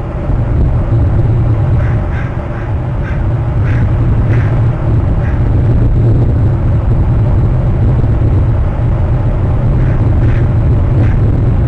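Steady low rumble of wind on an outdoor camera microphone, with a run of short bird calls about two to five seconds in and a few more about ten seconds in.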